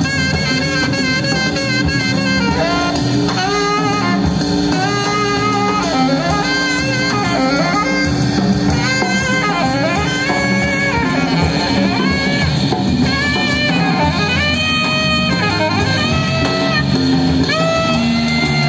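Live jazz trio: a saxophone plays a continuous melodic line of held notes over electric bass guitar and a drum kit with cymbals.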